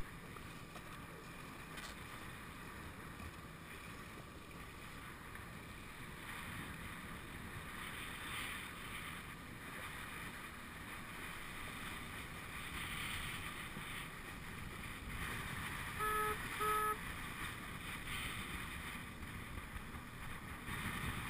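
Steady wind and water noise from a small boat on open water, with wind buffeting the microphone. About three-quarters of the way through come two short, high-pitched tones in quick succession, like a horn or beep.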